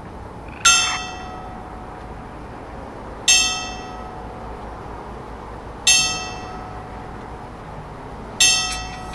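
A hand-wound mechanical clock striking the hour on a bell. Four strokes come about two and a half seconds apart, each ringing out and fading, part of a twelve-stroke noon strike.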